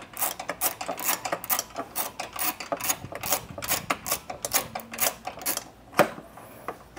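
Ratchet wrench clicking in quick, even strokes, about four or five clicks a second, as it loosens a bolt on an awning's mounting bracket on a roof rack. The clicking stops about six seconds in with one sharper click.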